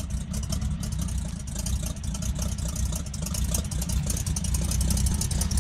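V8 engine in a Morris Minor van idling, a deep steady note that grows a little louder toward the end.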